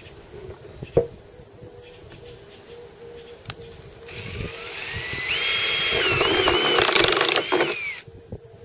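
Cordless drill with a step drill bit boring through the plastic wall of a battery box. After a few quiet seconds with a couple of small clicks, the drill starts about halfway through. Its whine climbs and wavers as the bit cuts, then stops shortly before the end.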